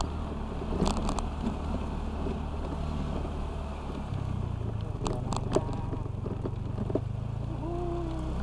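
Honda Vario 125 scooter's single-cylinder engine running steadily under way, its note shifting about halfway through. A few sharp knocks come around one second in and in a cluster about five seconds in, and a brief higher tone sounds near the end.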